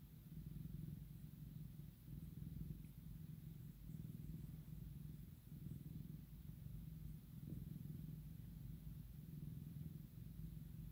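A domestic cat purring while being stroked: a low, steady rumble that swells and eases every couple of seconds with its breathing.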